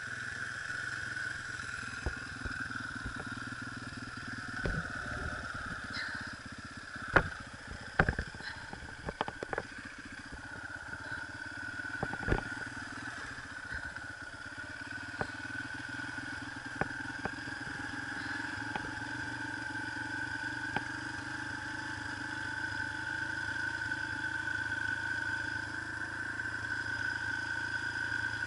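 A small dirt bike engine idling steadily, with irregular sharp knocks and clatter, most of them in the first half.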